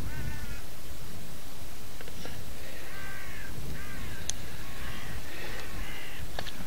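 Crows cawing, a string of short calls one after another, over a steady low background noise.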